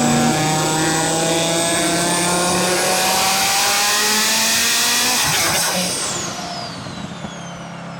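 Audi RS3's turbocharged five-cylinder engine accelerating, its pitch rising for about five seconds; then the throttle closes about six seconds in, the engine note drops away and a high turbo whistle falls steadily in pitch as the turbo spools down.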